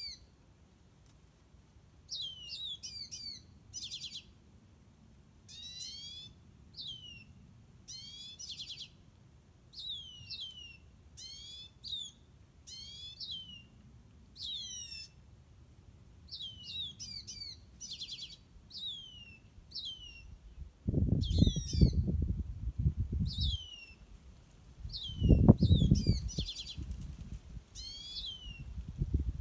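Birds calling over and over, short high notes that sweep down in pitch, often in clusters of a few, coming about every second or so. Two loud bursts of low rumbling noise come in about two-thirds of the way through and again a few seconds later.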